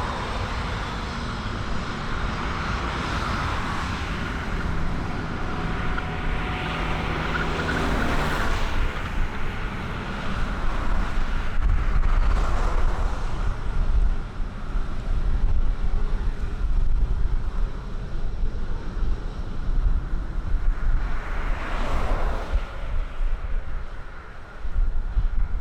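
An aircraft's engine drone fades away over the first eight seconds or so, over a gusty low rumble of strong wind buffeting the microphone.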